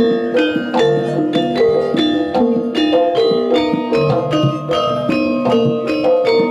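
Javanese gamelan playing jaranan accompaniment: metal keyed instruments struck with mallets in a steady run of ringing notes, about three or four a second.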